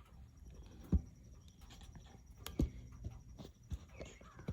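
Handling noise as the camera is repositioned: several light knocks, the sharpest about a second in and others past the middle, with faint scraping in between.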